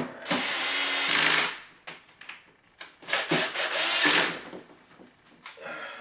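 Cordless drill/driver, its clutch set down to one, tightening screws on a dishwasher's door panel. The driver runs in two spells of about a second each, one near the start and one about three seconds in, with a shorter, quieter sound near the end.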